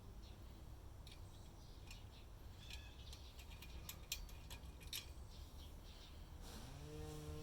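Faint scattered clicks and ticks over a low steady background rumble, with a steady pitched tone coming in near the end.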